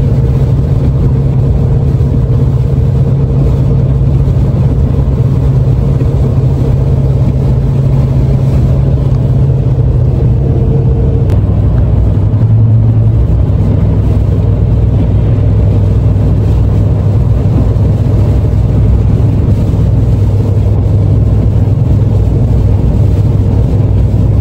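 Chevrolet Silverado pickup heard from inside the cabin while driving, a steady engine and road drone whose pitch drops slightly about halfway through.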